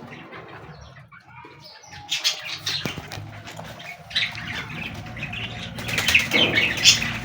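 Small cage birds fluttering their wings in bursts, with chirps.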